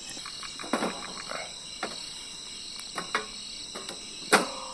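Crickets chirping steadily, with about five short, sharp knocks and clacks from camp work scattered through, the loudest near the end.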